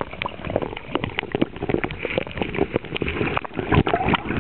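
Heavy rain pelting close to the microphone: a dense, irregular patter of sharp taps over a steady hiss.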